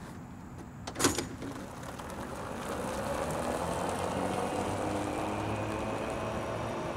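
Golf cart pulling away on a paved road: a sharp clunk about a second in, then the cart's running and tyre noise swells and holds steady as it drives off.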